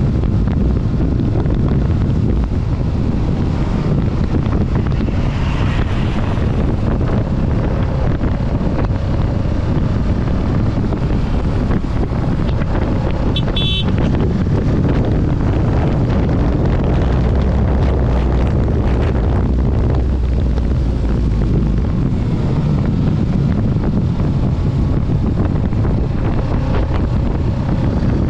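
Heavy wind noise on a helmet-mounted microphone while riding a Kawasaki Ninja 650, its parallel-twin engine running steadily underneath. There is a short, sharp high-pitched sound about halfway through.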